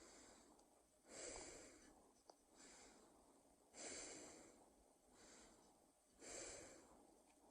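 Quiet, deliberately exaggerated human breathing. Three strong breaths come about two and a half seconds apart, each followed by a softer one, and a small click falls between the first two.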